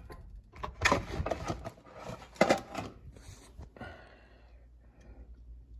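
Kitchenware being handled on a stovetop: a metal pot lid and dishes knock and clatter, with two louder knocks about one and two and a half seconds in, then quieter handling.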